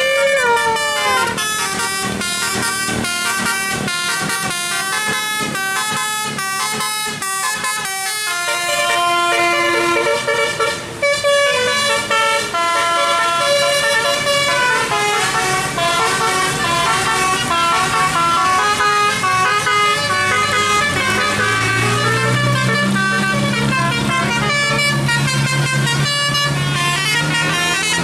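Bus musical "telolet" air horns playing a running tune of quick, stepped notes. Near the end, a bus engine's low drone rises beneath them, over the hiss of rain.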